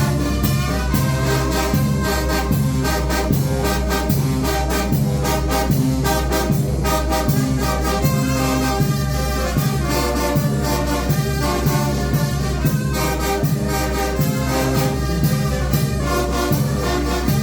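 Mexican banda de viento (brass wind band) playing: trumpets and trombones carry the tune over a low bass line and a steady drum beat.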